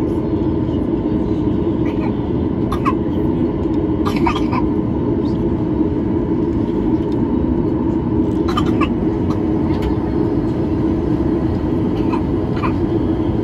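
Steady drone inside a Boeing 737's cabin on the ground, its engines idling, with a faint steady whine above the hum. A few short, sharp cabin noises cut through about 3, 4, 9 and 12 seconds in.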